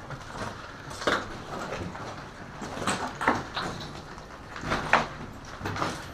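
Scattered sharp knocks and clicks at irregular intervals, the loudest about a second in, around three seconds in, and near five seconds, over a faint low steady hum.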